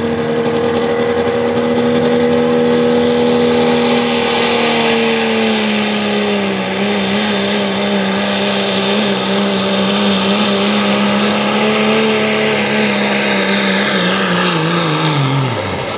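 Turbocharged 5.9-litre Cummins diesel in an International D200 pickup under full load pulling a sled: a steady, loud engine note with a high turbo whine that climbs over the first few seconds. The engine pitch sags a little about a third of the way in as the sled bears down, then falls away steeply near the end as the pull is over.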